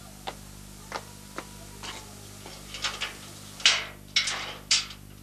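Corrugated sheet-metal door being unlatched and opened. A few light clicks come first, then a run of louder metallic rattles and clanks in the second half.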